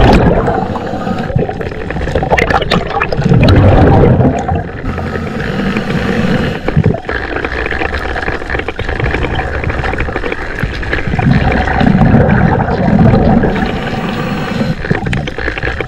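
Muffled underwater noise through a diving camera's housing: water rushing and sloshing against it in slow swells, with scattered sharp clicks.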